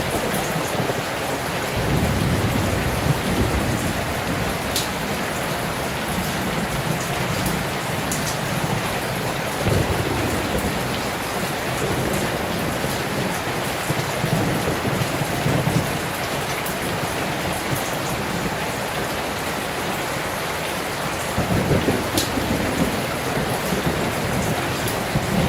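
Steady heavy rain heard from indoors, with low rumbling swells rising and falling every few seconds.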